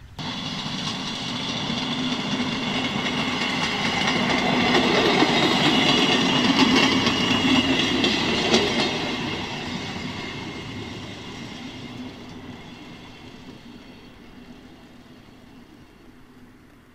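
A small motorised rail draisine passes by on the track, its engine running and wheels rolling on the rails. It grows louder to a peak around six to eight seconds in, then fades steadily as it moves away.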